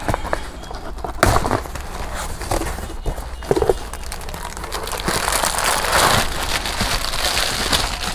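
Cardboard carton being opened and plastic-bagged water bottles handled and pulled out: crinkling and rustling of plastic wrapping with scattered knocks and clicks. The crinkling grows denser about five seconds in, as the bottles come out of the box.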